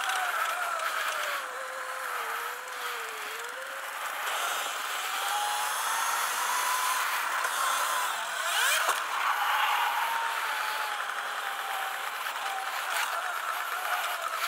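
Sur-Ron Light Bee electric dirt bike's motor whining while riding, its pitch rising and falling with speed, over a steady rush of wind and tyre noise on dirt.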